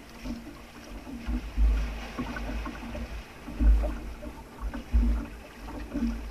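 Sea water lapping and slapping against the hull of a small outrigger fishing boat, with several irregular deep thuds.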